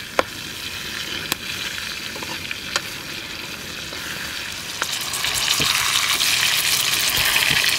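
Food frying in hot oil over a campfire: a steady sizzle with a few sharp pops, growing louder about five seconds in.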